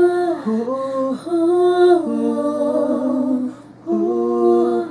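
Gospel choir singers, women's voices, singing a short wordless a cappella phrase of held notes. Two parts sing in harmony in the middle, and one last note comes after a short break near the end.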